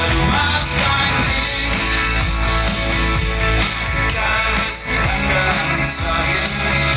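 Live rock music amplified over a large outdoor concert PA, led by guitars over a steady beat.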